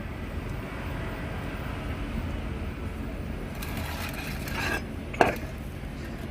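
Clattering handling noises: a scraping rustle, then one sharp knock about five seconds in, over a steady low rumble.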